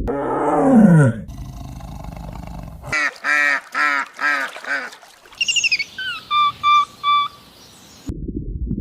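A run of different animal calls: first a low call falling in pitch for about a second, then five quick repeated calls, then a high bird call sliding down followed by three short even notes.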